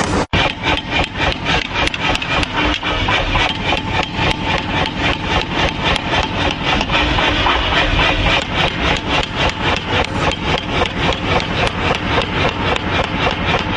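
A workshop machine running with a fast, even rhythm of about four to five strokes a second over a steady motor-like noise, with a brief break just after the start.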